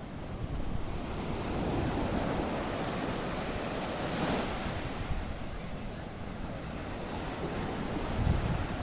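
Sea waves washing in and surging, with wind buffeting the microphone. The surf swells about halfway through, and a low gust or rumble rises near the end.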